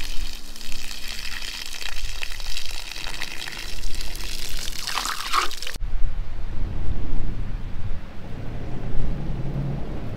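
Running water, then an abrupt cut about six seconds in to a steady low rumble.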